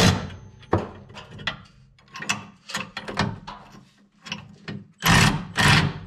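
Hand ratchet wrench clicking in short strokes as the hitch's bolts are snugged up, with two louder, longer bursts of ratcheting near the end.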